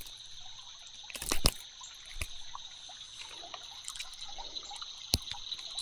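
Creek water trickling and splashing, with a steady high insect trill over it and a few sharp clicks.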